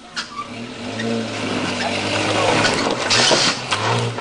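Lifted mini 4x4's small engine revving under load as it crawls over rocks. Its tyres scrabble and grind on the rock, loudest about three seconds in.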